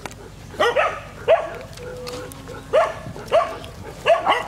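Dogs barking in short, sharp barks, often two in quick succession, about seven in all.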